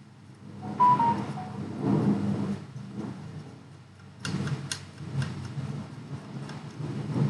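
A short electronic beep about a second in, stepping down slightly in pitch, followed by sharp clicks and handling noises of tools on the workbench.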